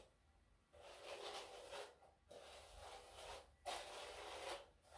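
Faint hairbrush strokes through long hair: three soft swishes about a second long each, with short pauses between them.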